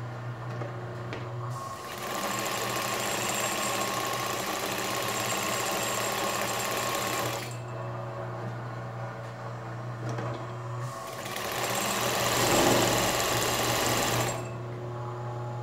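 Singer 31-15 industrial sewing machine, a 1950s model driven by an industrial motor through a V-belt, stitching cotton fabric in two runs. The first starts about a second and a half in and lasts about six seconds. The second, louder, starts about eleven seconds in and lasts about three and a half seconds. A steady low hum fills the gaps before, between and after the runs.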